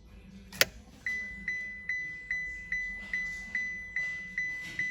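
A sharp click, then the 2020 Dacia Duster's dashboard warning chime starts about a second in, beeping at one steady pitch about two and a half times a second.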